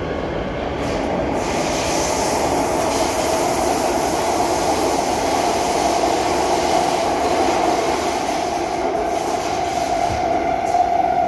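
Inside a moving SMRT C151B metro train: a steady rumble of wheels and rails with a held whine that creeps slightly upward in pitch while the noise grows gradually louder.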